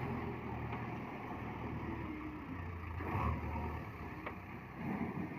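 JCB 3DX backhoe loader's diesel engine running under load as the machine works, rising briefly about three seconds in and again near the end.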